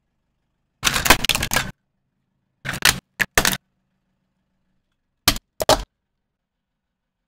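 Hard plastic toys cracking and crunching under a car tyre: a longer burst of crackling about a second in, three short cracks around three seconds, and two more sharp cracks near the end.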